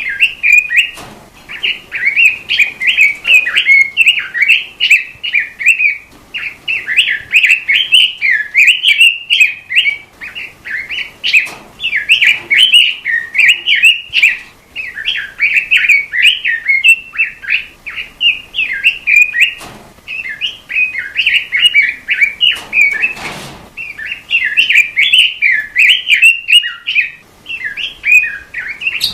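A robin singing in long, fast runs of warbling chirps and trills, broken by short pauses every few seconds, with a couple of faint knocks in the background.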